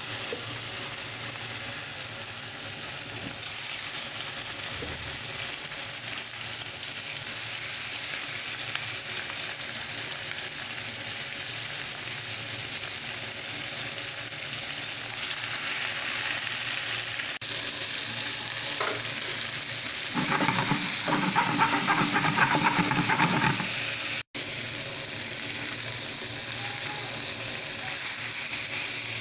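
Marinated turkey pieces sizzling in hot olive oil in a pan: a steady frying hiss. About two-thirds through it grows louder and rougher for a few seconds, then breaks off for an instant.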